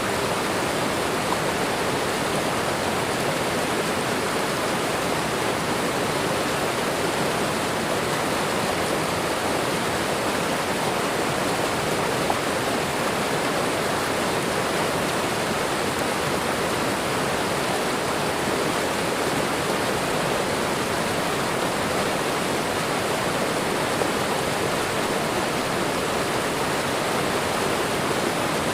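Waterfall and running water: a steady, even rush of falling water with no breaks or changes.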